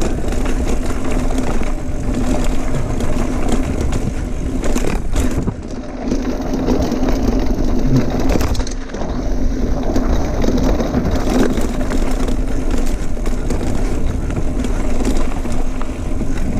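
Mountain bike rolling down a dirt trail: tyres crunching over dirt and gravel, wind buffeting the helmet-camera microphone, a steady hum and the frame and parts rattling over bumps.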